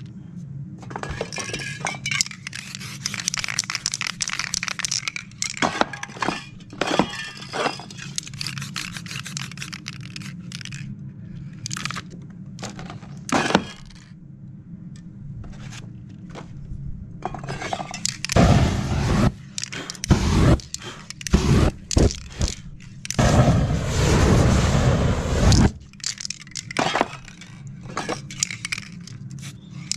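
Aerosol spray paint cans hissing in short bursts over a steady low hum. About two-thirds of the way in come louder, longer rushes of noise with a deep rumble.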